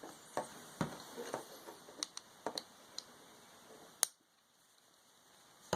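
Light clicks and taps from handling the plastic and metal parts of a disassembled Dremel 300 rotary tool, scattered irregularly, with a sharp click about four seconds in and a louder clatter at the very end.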